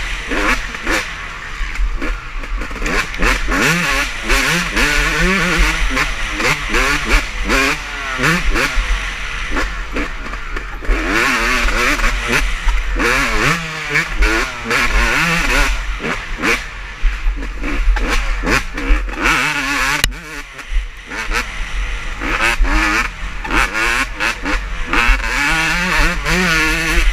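Several motocross bikes racing on the track, their engines revving up and down as they pass, shift and accelerate, several at once and overlapping, with a short dip about three-quarters of the way through.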